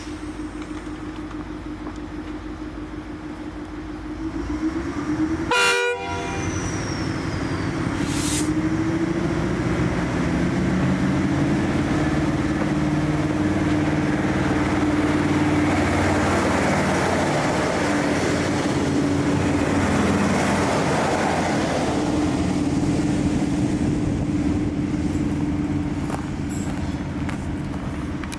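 V/Line Sprinter diesel railcars idling, then sounding one short horn toot about six seconds in. The engines then rev up and the train pulls away, running loudly past and fading as it departs.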